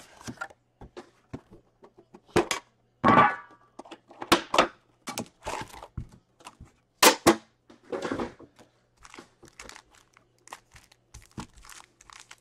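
Plastic wrap crinkling and tearing off a metal Upper Deck trading-card tin, with thunks as the tin is handled and opened, then foil card packs crinkling as they are taken out and stacked. The sounds are irregular rustles and knocks, with a few louder crinkly bursts.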